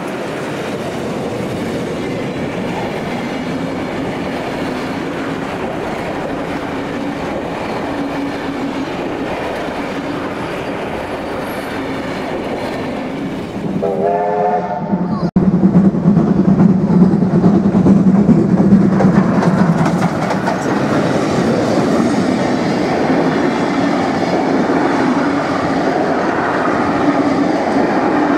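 Passenger carriages of a steam-hauled train rolling past close by, wheels clicking over the rail joints. About halfway the train's whistle sounds once, briefly; the sound drops out for an instant and the rolling comes back louder.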